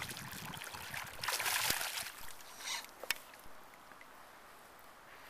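A hooked fish thrashing and splashing at the water's surface, loudest from about one to two seconds in, with a single sharp click about three seconds in.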